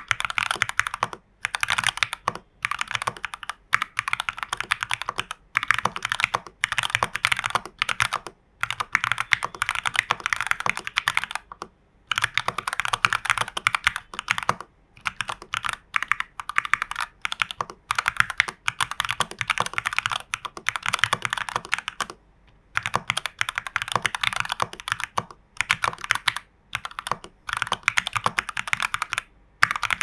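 Typing on a TU40 plastic 40% mechanical keyboard with Gateron Ink Box Black linear switches, XMI Cyrillic R keycaps, case foam, PCB foam and tape mod. Rapid keystrokes come in runs of one to three seconds with short breaks between them.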